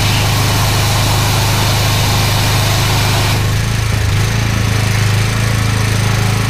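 Drain jetting machine's engine running steadily, with the hiss of high-pressure water jetting down the drain. About three and a half seconds in, the hiss drops away and the engine note changes.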